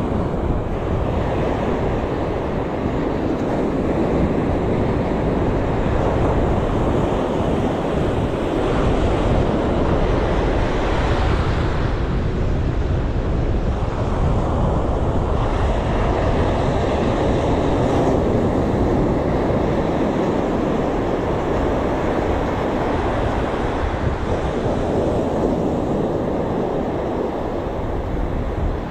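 Sea waves washing in, with wind blowing across the microphone: a continuous rushing noise that swells and eases.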